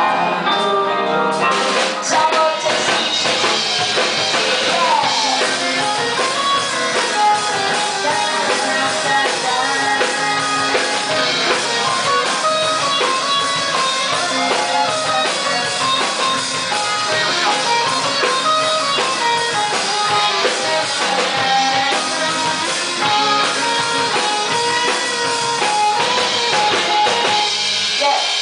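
Live rock band playing: amplified electric guitars over a drum kit, loud and steady, the low end thinning out near the end.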